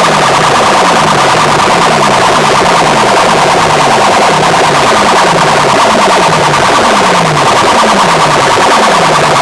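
Very loud, distorted electronic music blasting from large DJ sound-system speakers. A low falling sweep repeats about one and a half times a second over a harsh, clashing mid-range din.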